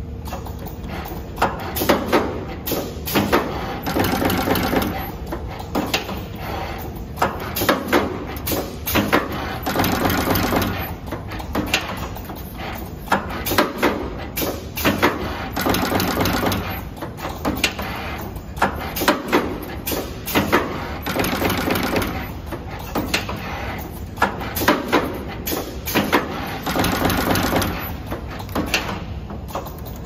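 Automatic multi-core cable stripping and crimping machine cycling: repeated sharp clacks and clicks from its stripping and crimping stations, with a louder whirring stretch lasting a second or so about every five to six seconds as each cable end is processed.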